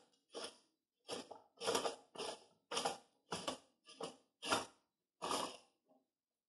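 Parts of a Harbor Freight manual tire changer's mount/demount bar assembly being unscrewed and worked off the center post by hand: about ten short scraping strokes, roughly two a second, stopping about six seconds in.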